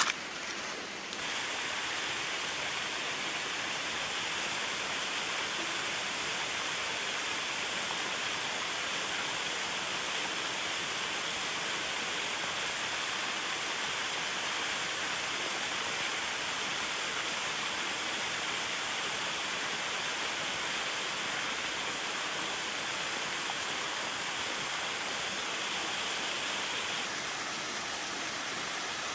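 Steady rush of a waterfall: an even hiss of falling water that comes up about a second in and eases slightly near the end.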